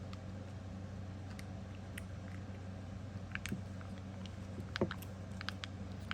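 Scattered light clicks and taps from small objects being handled, coming more often in the last couple of seconds, over a steady low electrical hum.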